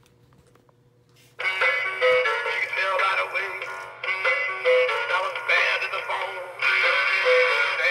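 Gemmy animated singing catfish toy playing its recorded song: singing over music starts suddenly about a second and a half in, after a near-silent pause.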